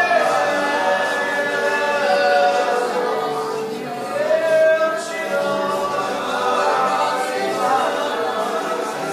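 A congregation singing freely in worship, many voices overlapping on long held notes that glide slowly in pitch, with little or no accompaniment.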